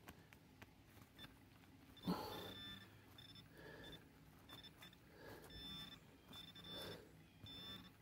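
Handheld metal-detecting pinpointer sounding a faint high steady tone in short on-and-off stretches from about two seconds in, as it is pushed through wet wood chips over a buried target, with rustling of the chips.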